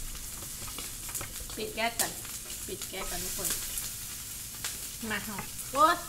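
Pork belly slices sizzling steadily on a grill pan, with light clicks of chopsticks against it. Short stretches of a voice come in a few times, loudest near the end.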